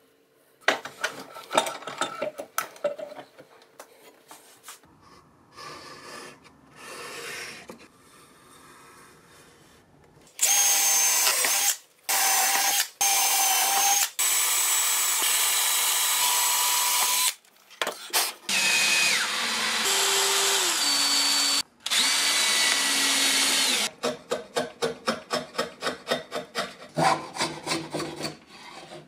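Power drill running in several long bursts, its motor whine shifting and dropping in pitch as it bites, after a few scattered knocks. Near the end, quick short strokes of a small wooden hand plane shaving wood, about four a second.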